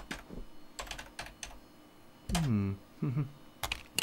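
Computer keyboard typing, a run of light key clicks, then two short vocal sounds in the second half and a few more sharp clicks near the end.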